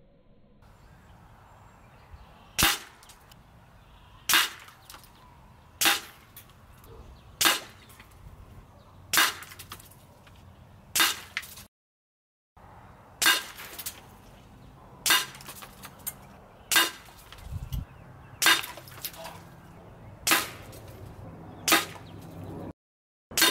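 FX Crown PCP air rifle firing a string of about a dozen shots, roughly one every second and a half to two seconds, each a sharp crack with a short ring.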